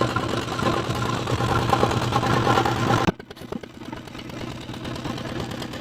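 Small boat engine running steadily. About three seconds in the sound cuts abruptly to a quieter engine hum.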